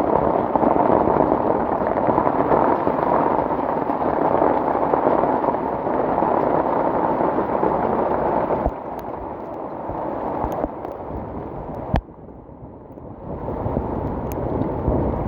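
Rushing floodwater of a swollen mountain river, a steady dense roar of water. It gets quieter about nine seconds in, and after a sharp click it briefly drops away near twelve seconds before coming back.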